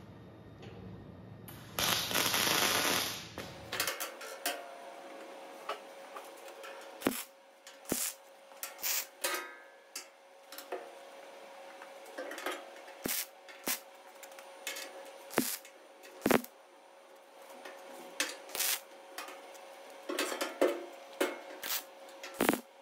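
MIG welder striking a short tack weld on steel plate, a crackling arc about two seconds in, then scattered sharp metal knocks and clanks as the plate is pried down tight. Another short tack near the end.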